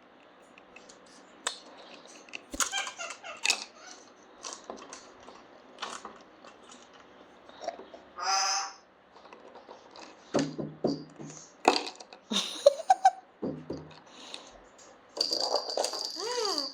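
A pet bird pecking at and handling its food: scattered light taps, clicks and rustles, with one short pitched call about eight seconds in. A steady high tone starts near the end.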